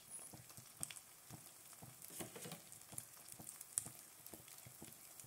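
A fried egg topped with cheese and ham sizzling faintly in a hot frying pan, with irregular small pops and crackles from the fat.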